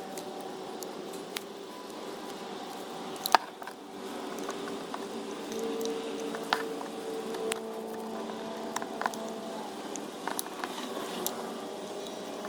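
A steady hum of several held tones, with scattered sharp clicks and taps at irregular intervals; the loudest click comes a little over three seconds in.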